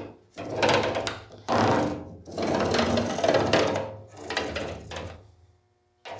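Marker tip dragged across woven stainless steel mesh in about five strokes, each half a second to a second and a half long, the longest in the middle.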